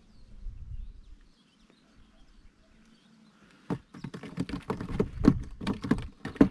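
Handling of a fishing rod and small reel: after a quiet start, an irregular run of sharp clicks and knocks begins a little past halfway, fast and uneven, as the rod is lifted and the reel is worked by hand.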